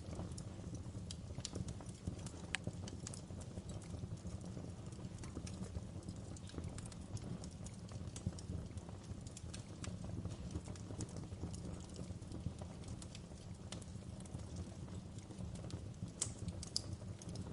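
Wood fire crackling: irregular sharp pops and snaps over a steady low rumble, with a few louder pops near the end.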